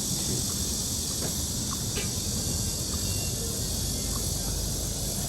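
Busy street ambience: a steady high hiss over a low rumble, with a few faint ticks and snatches of distant voices.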